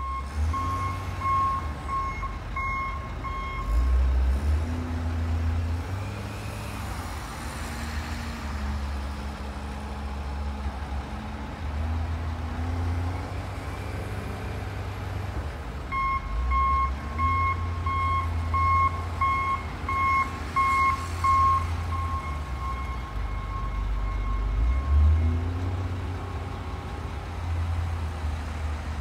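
Diesel engine of a front-end loader revving up and down as it loads salt into a snow plow dump truck. A back-up alarm beeps steadily during the first four seconds and again for several seconds past the middle.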